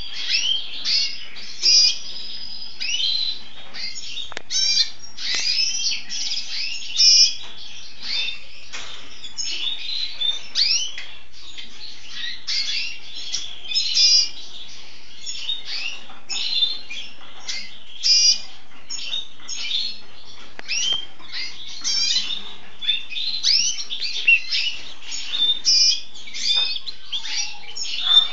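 Male red siskin (cardenalito) singing a long, continuous twittering song of quick high chirps, rising and falling notes and short trills.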